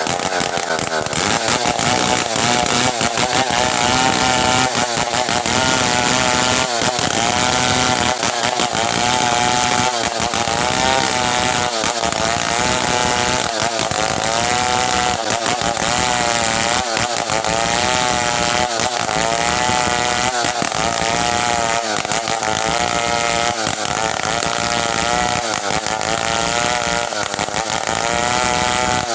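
Stihl 070 two-stroke chainsaw running at high revs, cutting through merbau hardwood; its engine pitch dips and recovers every second or two as the chain takes load.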